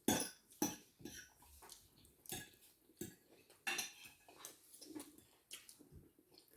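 Cutlery clinking and scraping against plates during a meal: sharp, irregular clinks about once a second, the loudest right at the start.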